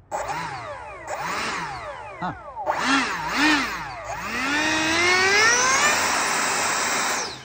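A 64 mm electric ducted fan on a hand-held foam-board RC jet is run up on the ground. It whines up and down in pitch through several short throttle blips, then climbs steadily to a high whine and cuts off suddenly near the end.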